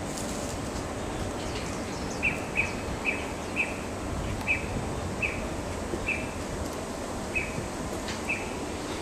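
A bird calling with a string of short, sharp, identical high chirps, about one to two a second, starting about two seconds in, over a steady outdoor background hiss.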